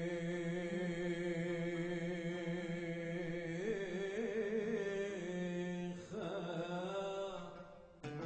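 A male cantor singing bakashot (Jewish liturgical poetry) alone, holding long notes with a wavering, ornamented run in the middle of the phrase. The phrase fades out near the end.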